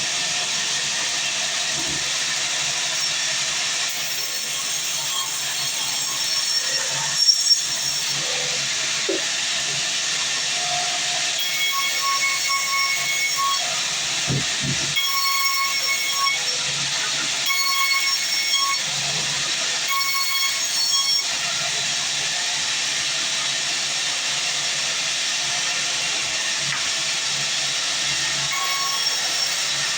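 Manual band sawmill sawing a long mahogany log: a steady, loud hissing rush of the blade through the wood. A whining tone comes and goes in several short stretches through the middle.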